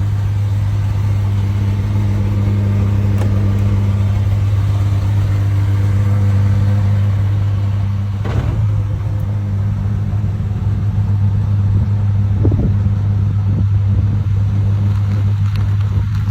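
Czinger 21C's twin-turbo V8 running steadily at a constant low pitch, with a couple of brief disturbances midway.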